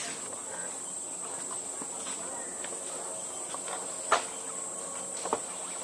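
Steady high-pitched drone of rainforest insects, with two sharp knocks about a second apart near the end.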